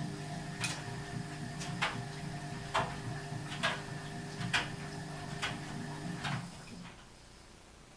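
Ardo washing machine running: a steady motor hum with a sharp click about once a second, stopping about seven seconds in.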